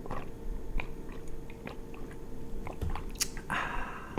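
Close-miked chewing: a person biting and chewing food, with small scattered wet clicks from the mouth and a brief rustle near the end.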